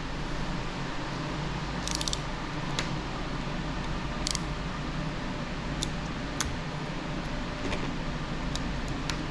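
Light, scattered clicks and rattles of a Thermaltake CPU heatsink and its small parts being handled and unpacked, over a steady low hum.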